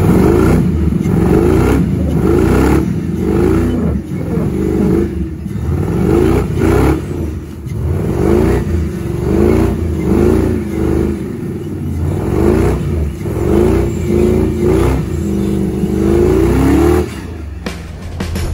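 Off-road rock buggy's engine revving hard, the pitch rising and falling over and over about once a second, then cutting off near the end.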